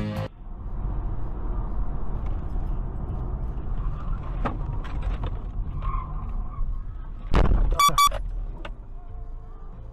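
Steady road and engine rumble of a car driving on a highway. About seven and a half seconds in come two short blasts of a car horn.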